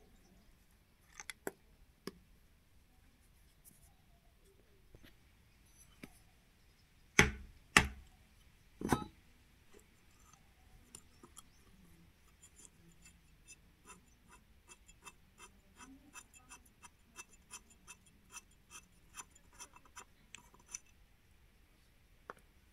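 Hand tools working on a tractor's front wheel hub: three loud metal knocks about a third of the way in, then about ten seconds of light, evenly spaced clicks, a few per second.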